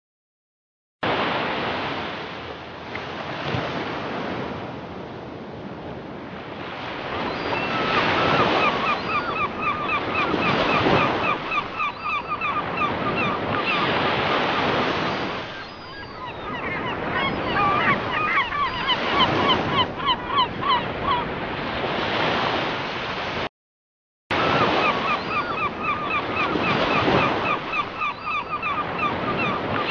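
Surf washing in and out on a shore, swelling and falling, with gulls calling in quick runs of short repeated notes over it. The sound cuts out for under a second about two-thirds of the way through, then starts again.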